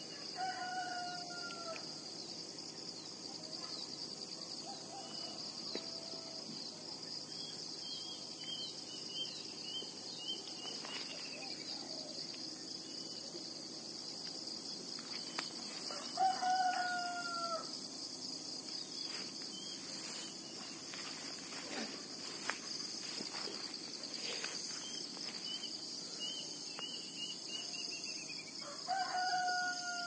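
Roosters crowing three times, each crow about a second and a half long, near the start, midway and at the end. Underneath runs the steady high-pitched drone of insects, with smaller bird calls in between.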